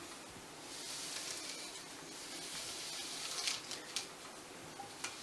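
Warp yarn hissing as it is drawn over the copper pipe bar of a tapestry loom and through the weaver's hands, followed by a few light ticks.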